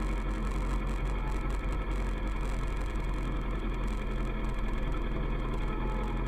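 Kawasaki ER-6f's 649 cc parallel-twin engine running steadily at cruising speed, its pitch holding level, over a heavy, steady low wind rumble.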